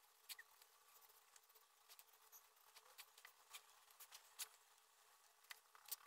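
Faint pencil sketching on paper: scattered light ticks and scratches of the pencil tip as it shades, closer together near the end.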